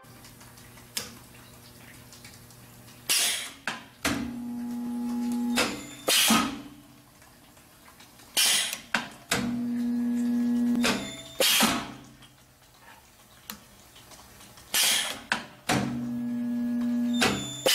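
Miller resistance spot welder making three spot welds on overlapping steel strips. Each weld goes the same way: a short noisy burst as the copper electrodes clamp the sheet, a steady electrical buzz for about a second and a half while the weld current flows, then another short burst as the electrodes open.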